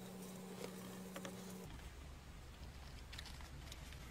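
Faint taps and rustles of hands handling a plastic key-finder receiver and a TV remote control, over a low steady hum.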